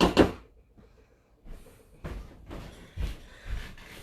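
A spoon or spatula clatters sharply against a mixing bowl, then scrapes through thick banana-bread batter in repeated strokes about twice a second as it is stirred.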